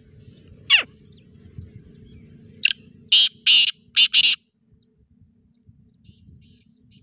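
Caged black francolin calling: two steep falling notes near the start, then a quick burst of five short harsh notes about three to four seconds in.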